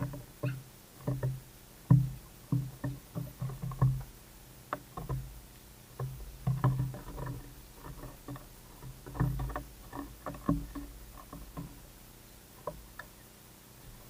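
Rock pigeon pecking seed off a wooden board close by: irregular knocks in quick runs, thinning out over the last few seconds.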